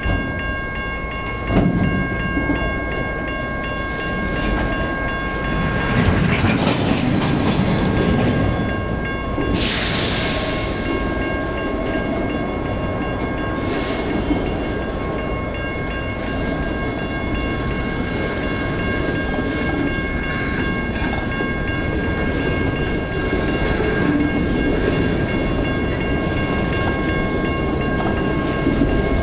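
Loaded freight gondola cars rolling past close by, their steel wheels clattering and rumbling along the rails, with a thin, steady high ringing tone above the rumble. A short hiss rises about ten seconds in.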